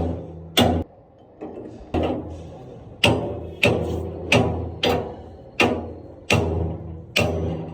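A hammer striking metal again and again, about one to two blows a second at slightly uneven spacing, each blow ringing briefly. A steady low hum runs underneath.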